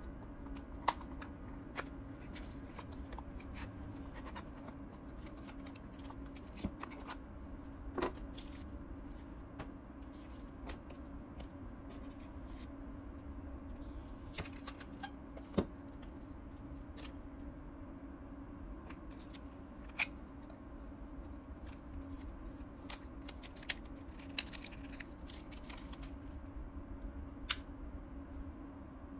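Hands handling a small cardboard box, paper leaflets and a plastic charger plug: scattered light clicks and taps with soft paper rustling, over a steady low hum.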